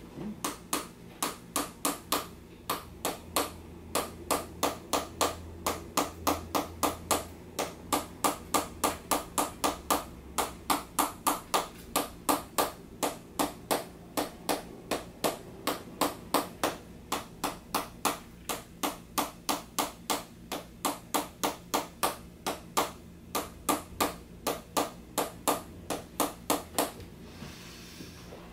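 Chiropractic activator adjusting instrument firing a rapid, even series of sharp clicks, about three or four a second, with a short pause near the end.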